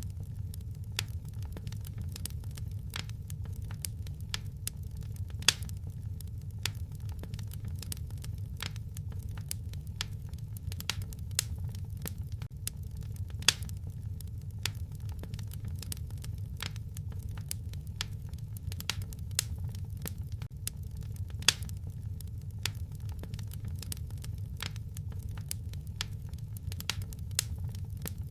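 Wood fire in a fireplace crackling: a steady low rumble of the flames under irregular sharp snaps and pops, with a few louder pops several seconds apart.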